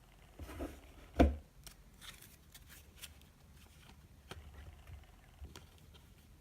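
Trading cards being handled and slid against one another, with scattered light clicks and rustles and one sharp knock about a second in.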